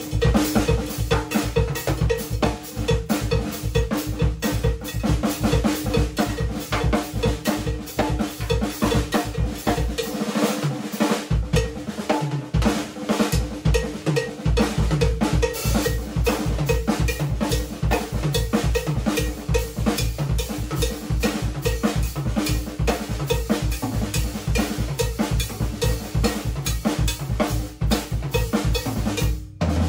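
Drum kit playing a Brazilian-style groove: steady bass drum and hi-hat under a repeating cowbell pattern of accented and ghost notes, with improvised Latin-style snare hits. The bass drum drops out for a few seconds about a third of the way in, and the playing stops suddenly at the end.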